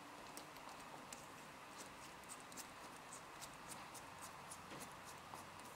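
A scatter of faint small ticks and scrapes as a 90-degree mirror tip is screwed onto the fine thread of a borescope camera head.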